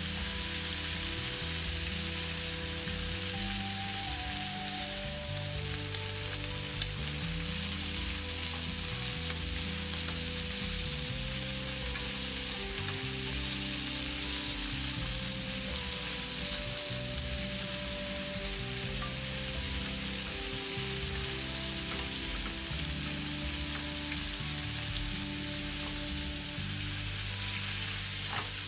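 Food sizzling and frying steadily in a hot pan, with soft background music of slow held notes.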